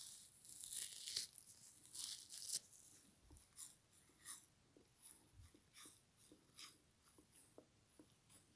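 A frozen foam kitchen sponge being bitten and chewed. Dense icy crunching and tearing fills the first two and a half seconds, then short separate crunches follow one or two a second as it is chewed.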